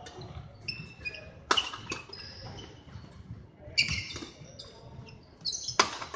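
Badminton rackets striking a shuttlecock three times, about two seconds apart, with sports shoes squeaking on the court floor between the hits.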